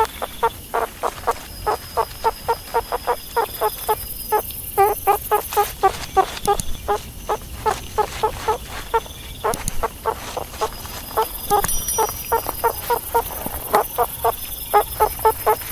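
Meerkats calling: a rapid run of short, clucking chirps, about four a second, kept up without a break.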